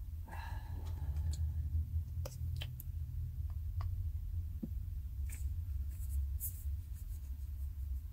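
Scattered light clicks and taps of small objects being handled on a table, over a steady low hum.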